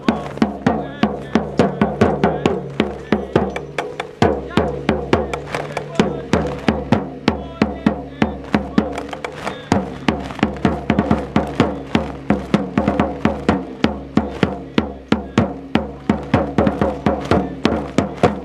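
Drums beat a fast, steady marching rhythm, with held pitched notes sounding beneath them, as accompaniment to a flag-waving display.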